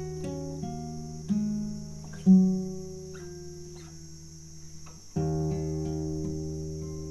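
Nylon-string classical guitar played fingerstyle: plucked melody notes over ringing bass notes. The sound breaks off briefly just after five seconds, then a new chord is struck firmly.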